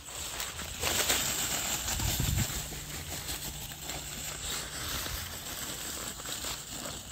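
M35A2 6x6 army truck's engine idling with a low, steady hum, under crackling footsteps over cut sugar cane leaves.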